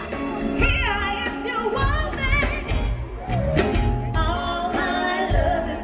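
Live R&B band performance: a female lead singer sings held notes with vibrato and runs over electric guitar, bass and drums.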